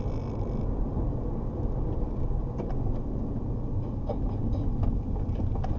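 Steady low rumble of a moving car's engine and tyres on the road, picked up by a dashcam, with a few faint ticks.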